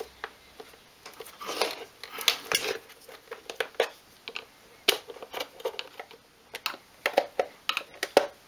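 Small screwdriver prying and scraping at the plastic clip catches of a Karcher K2 pressure washer's pump casing: scattered sharp clicks and taps with a few short scraping rubs as the clips are pushed down and released.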